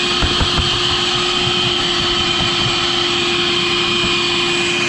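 Vacuum cleaner motor running steadily at full speed with a constant whine, with a few knocks within the first second as debris hits the hose.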